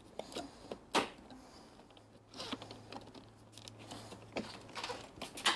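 Hard plastic clicks and taps as an F8x-style kidney grille is lined up and pressed into a BMW E92's front bumper: a sharp click about a second in, small scattered taps, and another sharp click near the end.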